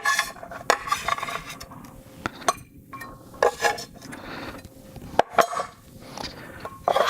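Kitchen dishes and utensils clinking and knocking: a series of scattered sharp clicks and clatters as things are handled on the counter.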